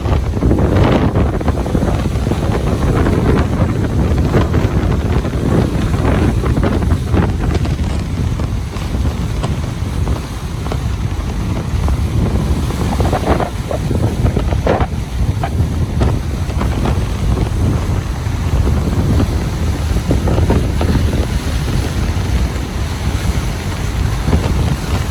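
Ocean surf washing on a beach under heavy wind rumble on the microphone, steady throughout with a few brighter splashes about halfway through.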